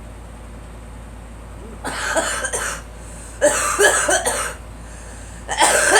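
A girl coughing in three bouts, the first starting about two seconds in, each bout lasting about a second.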